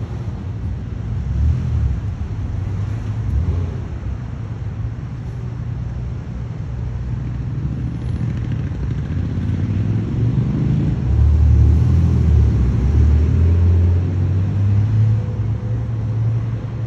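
Road traffic: vehicle engines driving past with a low hum, swelling about two thirds of the way through as a vehicle passes close.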